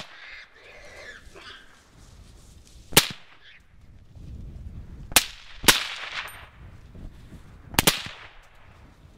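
Four rifle shots at feral hogs. The second and third are about half a second apart, and each report rings on briefly.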